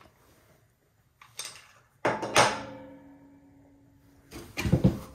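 Knocks and handling of a wooden rigid heddle loom: a sharp knock about two seconds in that rings on for a couple of seconds, then a few dull thumps near the end.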